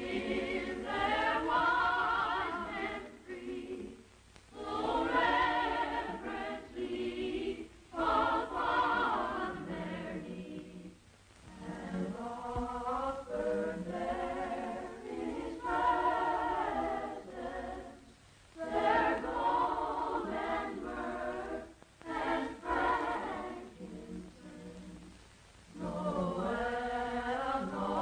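Boys' choir singing, in phrases of a few seconds with short breaks between them.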